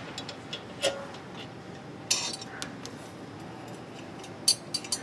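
Steel exhaust pipes and clamp clinking and scraping as a joint pipe is pushed onto the header of a VW Beetle engine: a few light metal clicks, the sharpest near the end.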